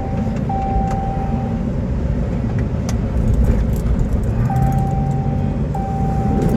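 Cabin of a moving patrol car: steady engine and road rumble, with a steady electronic beep tone sounding in stretches of about a second, short gaps between them, stopping about a third of the way in and coming back near the end.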